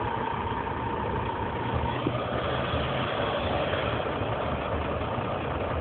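Vehicle engine and road noise heard from inside the cabin: a steady low rumble with even background hiss. A faint steady high tone fades out about two seconds in.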